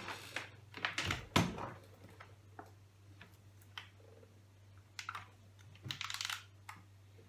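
Keys being pressed on the Asus X59SR laptop's keyboard: a few irregular clicks and taps with some brief rustling, over a steady low hum.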